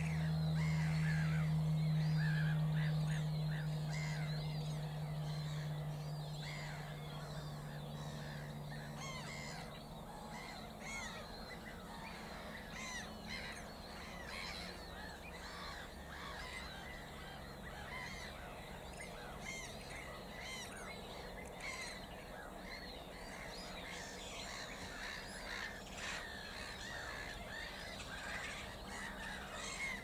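Many overlapping harsh calls from a flock of gulls, going on throughout. A low steady hum fades out over the first ten seconds or so.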